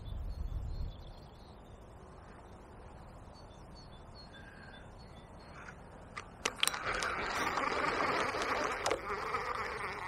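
A fishing reel being handled and wound in: a few sharp clicks about six seconds in, then a raspy, buzzing wind-in through the last three seconds. Before that only a faint, steady background.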